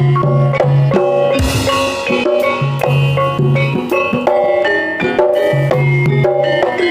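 Javanese campursari ensemble music: struck pitched percussion playing quick melodic notes over drum strokes, with short deep bass notes repeating underneath.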